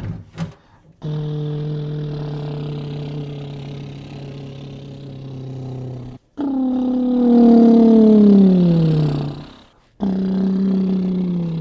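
A man's drawn-out vocal exclamations of amazement, sung more than spoken. First a long held note, then a louder one sliding down in pitch, then a shorter held note near the end.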